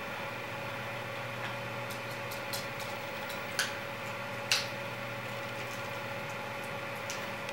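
Dog's claws clicking on a hardwood floor as it shifts its feet, a few scattered sharp ticks with the loudest two near the middle, over a steady electrical hum.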